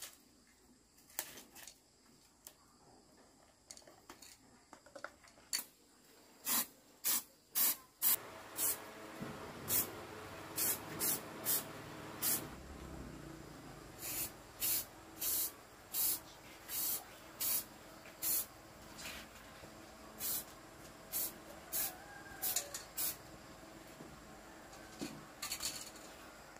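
Aerosol spray can hissing in a couple of dozen short bursts, quick and irregular, starting about five seconds in after a few light clicks.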